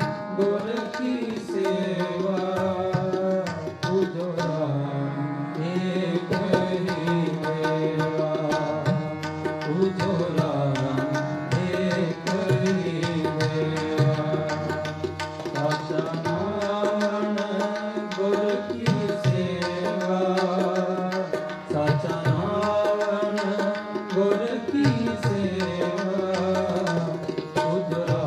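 Gurbani kirtan: harmoniums and tabla accompany a sung shabad. The tabla keeps a steady stream of strokes under the held reed tones of the harmonium and the singer's voice.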